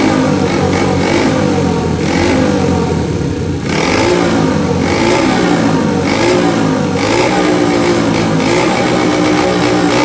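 Custom Honda Monkey's four-stroke engine breathing through a Pretty Racing aftermarket exhaust, revved over and over so the pitch keeps rising and falling, with a brief drop about three and a half seconds in.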